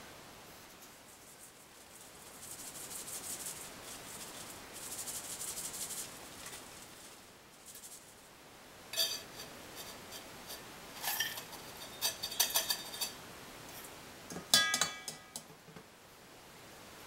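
Ground acorn meat rubbed through a fine stainless mesh strainer with a plastic spatula: two stretches of scratchy hiss. Then, from about nine seconds in, a run of sharp metallic clinks and taps from the stainless strainer and bowls, with the loudest ringing clinks near the end.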